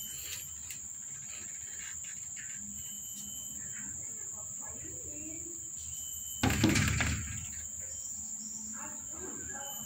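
Insects droning steadily in the background in one high-pitched tone, with a brief loud bump about six and a half seconds in.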